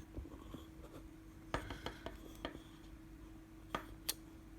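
Scattered light clicks and taps of small hard objects being handled, about five in all, over a faint steady hum.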